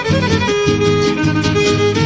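Huapango-style string music: a violin holds a melody over rhythmic strummed guitar chords, with no singing.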